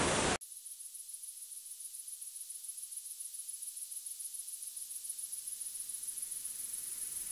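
Rushing waterfall that cuts off abruptly less than half a second in. After it comes a faint hiss with a thin, very high steady whine, slowly growing louder.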